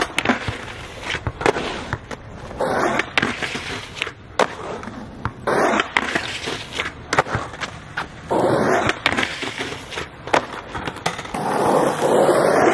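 Skateboard being ridden at a concrete ledge: wheels rolling and scraping along the ledge in several noisy stretches, broken by sharp clacks of the tail popping, the board slapping down and hitting the ground. The loudest scrape comes near the end.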